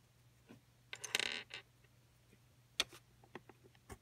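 Fingers handling a plastic LEGO minifigure: a short rustling scrape about a second in, then a sharp plastic click and a few small ticks as the figure is pressed onto the baseplate's studs. A faint steady hum lies underneath.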